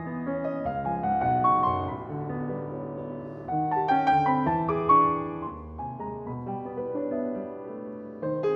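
Solo piano playing a toccata: many quick overlapping notes over held bass notes, with louder struck chords about three and a half and five seconds in.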